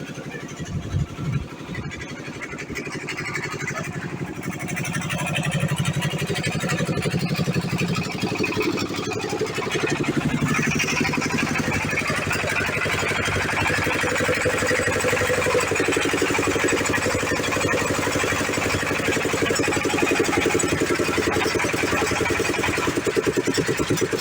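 Diesel generator engine running steadily with an even firing beat, growing louder over the first several seconds and then holding steady.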